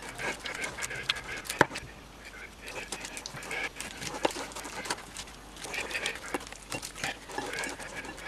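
Silicone spatula stirring softened butter, sugar and eggs in a glass bowl: wet squishing and scraping, with irregular clicks of the spatula against the glass, the sharpest about one and a half seconds in.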